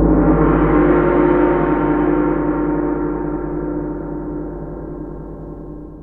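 A gong ringing after a single strike, sounding many tones at once and slowly fading away.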